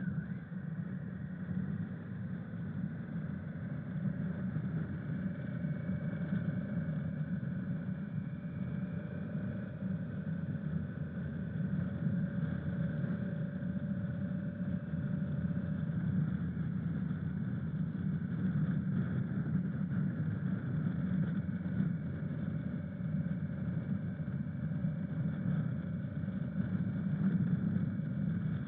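Honda CRF1000 Africa Twin parallel-twin motorcycle engine running steadily under a low, even rush of noise, with no revving or gear changes.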